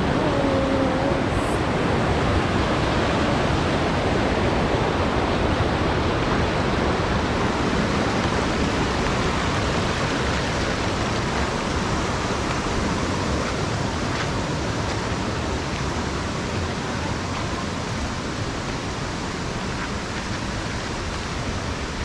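Steady rushing of flowing water, easing slightly toward the end.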